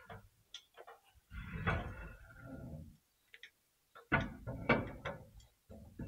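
Metal clinking and rattling as a truck's axle shaft is slid back into the rear hub and its flange worked onto the hub: irregular clicks and scrapes in two bursts, about a second in and again about four seconds in.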